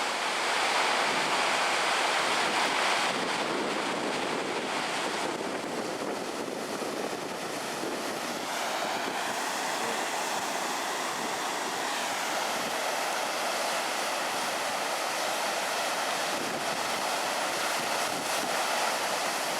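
Kamo River in flood, swollen by typhoon rain: a steady rushing of fast, high water, with wind buffeting the microphone.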